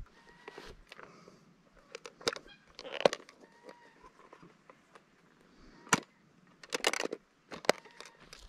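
Scattered sharp knocks and crunches, the loudest about three seconds in, with another cluster from about six to eight seconds. Faint high calls sound underneath.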